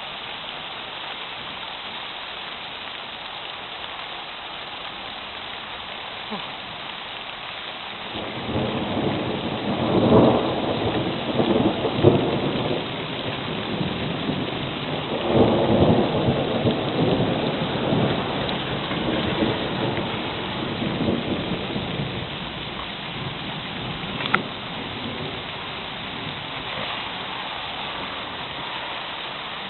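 Steady rain falling, with a long roll of thunder that starts about eight seconds in. The thunder rumbles through several swells and then slowly fades away.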